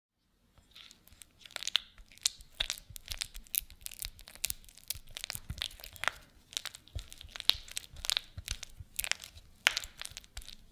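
Silicone spatula mashing and spreading softened butter in a glass bowl: an irregular run of sticky scrapes and sharp clicks, several a second, starting about half a second in.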